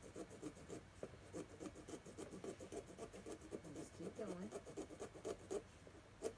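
Small pumpkin-carving saw cutting through the pumpkin's rind around the stem: a faint scratchy rasp in quick short strokes, several a second, as the lid is cut free.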